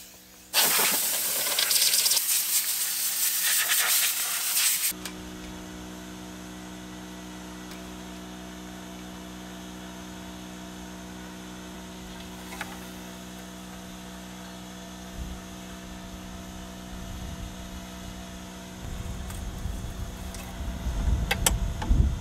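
Compressed air hissing from a handheld air blow gun for about four seconds while blowing dust out of an engine bay, then cutting off, leaving a steady low hum. A few low knocks and handling noises come near the end.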